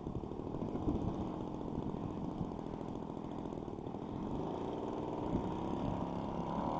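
Fuji Imvac 34 cc two-stroke gasoline engine of a quarter-scale RC Piper Cub running at low throttle, picking up in pitch and loudness near the end as the throttle opens for takeoff.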